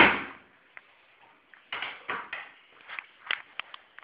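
Handheld camera being moved and handled: a brief rustle at the start, then scattered light clicks, knocks and rustles from about halfway on.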